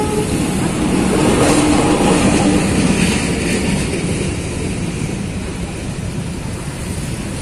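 Train rolling past a level crossing and drawing away, its rumble fading gradually over the last few seconds. A horn blast cuts off right at the start.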